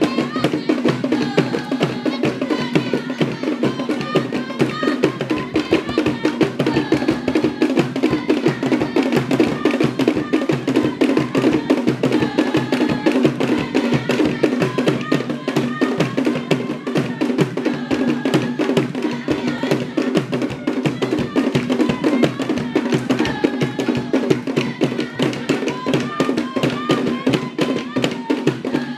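Traditional West African drum ensemble of hand-played upright drums and percussion keeping a fast, dense dance rhythm, with voices heard over it.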